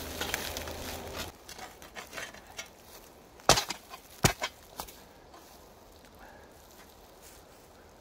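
Two sharp knocks a little under a second apart, with lighter taps around them, like a tool striking something solid. Before them, a steady low hum cuts off suddenly about a second in.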